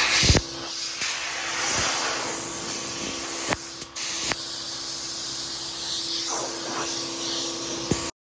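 Pressurized spray hissing in several bursts that start and stop sharply, with a fainter hiss between them and a short burst near the end.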